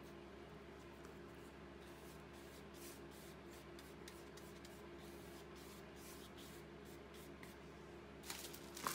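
Faint, repeated strokes of a flat bristle brush sweeping over collaged paper, over a steady low hum. Near the end comes a louder rustle of paper being handled.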